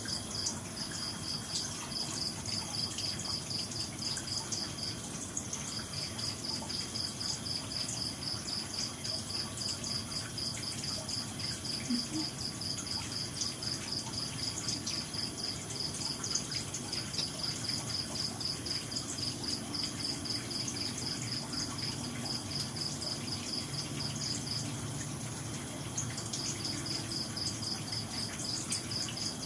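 An insect, like a cricket, trilling in rapid, evenly spaced high pulses that break off briefly three times.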